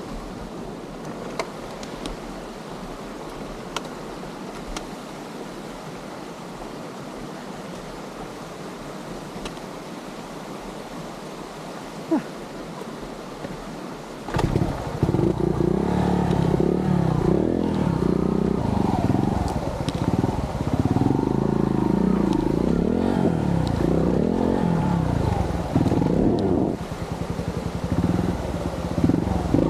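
Yamaha TY-S125F trials motorcycle engine running quietly at low revs, then, about halfway through, opening up much louder with its pitch rising and falling unevenly as the bike is ridden uphill over a rough, washed-out track. A single sharp click just before it gets louder.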